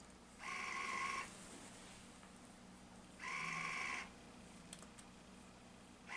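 Burette drive of a Metrohm 716 DMS Titrino exchange unit buzzing in short runs of under a second, about three seconds apart, twice and again at the very end. Each run pushes the piston forward to dose one increment of titrant during an automated titration.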